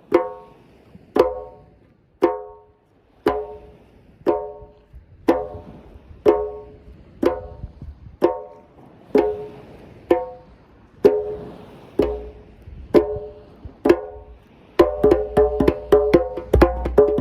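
Djembe played with slow, single ringing tone strokes about once a second. Near the end it breaks into a fast run of many quick strokes.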